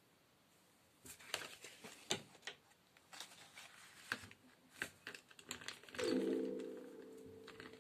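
Clicks, taps and paper rustles as a wooden hand-crank music box is handled and its punched paper strip is fed in. About six seconds in, the music box's comb sounds a first cluster of notes together, which then slowly fades.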